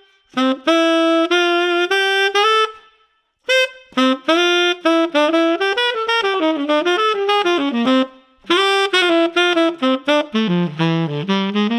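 Tenor saxophone fitted with a JodyJazz hand-hammered, rose gold-plated metal mouthpiece, played as a jazz melody in three phrases with short breaths between them. The line drops into the horn's lower notes near the end.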